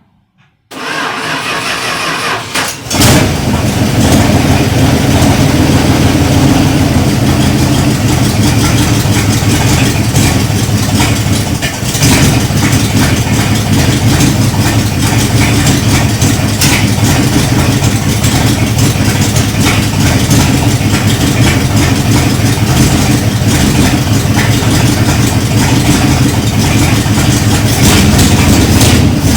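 A 1978 Dodge Power Wagon's engine is cranked by the starter for about two seconds, then catches about three seconds in and runs steadily at idle.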